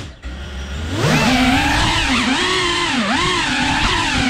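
Cinewhoop FPV drone's motors and ducted propellers whining. The pitch dips and climbs smoothly about once a second as the throttle changes. The whine rises in about a second in, after a lower steady hum.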